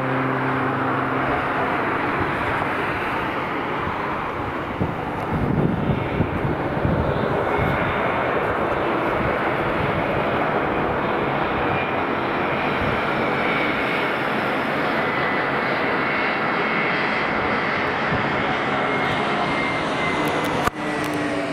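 Lufthansa Airbus A321 jet engines on final approach with gear down: a steady, loud rush of engine noise. In the second half a faint high whine runs through it and slowly falls in pitch.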